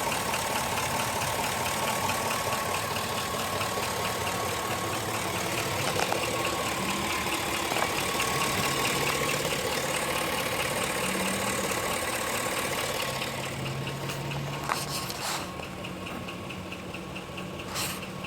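2005 GMC Sierra pickup engine idling with a fast, even knock running through it, the engine knock the owner is recording. The sound drops somewhat in level about two-thirds of the way through, and a few sharp clicks come near the end.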